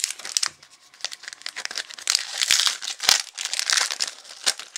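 Trading cards and a pack wrapper being handled: cards slid and flicked against each other and the wrapper crinkling, in a quick run of short rustles and scrapes, with one sharper tap about three seconds in.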